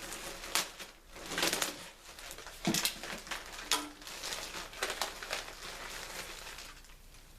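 Packaging rustling and crinkling in irregular bursts as a clothing item is pulled out and unwrapped by hand, dying down near the end.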